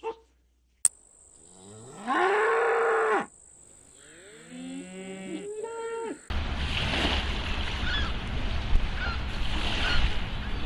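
Cows mooing: one long moo that rises and then holds, about two seconds in, then several shorter overlapping moos from more than one cow. From about six seconds in, a steady rush of wind and water noise with a few faint high bird calls.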